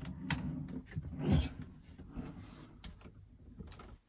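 A person shifting and lying down on a camper-van bunk mattress: fabric rustling and soft bumps of the body against the bed, the strongest about a second in, with a few light clicks.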